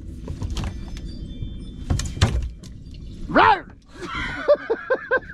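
Dull thuds of a large barracuda knocking against a boat's fiberglass deck while it is held down, the loudest pair about two seconds in. Near the end comes a quick run of short, high cries that rise and fall, about three a second.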